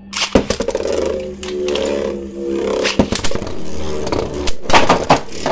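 Two Beyblade spinning tops launched into a plastic Beyblade stadium, then spinning and clashing. A sharp start just after the launch gives way to a steady whirr, broken by repeated sharp clicks and knocks as the tops strike each other and the stadium wall.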